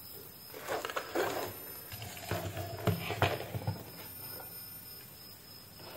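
Plastic diffuser cover being fitted by hand onto a round LED ceiling light: a few light knocks and scrapes of plastic on plastic, in two clusters about a second in and from two to nearly four seconds in.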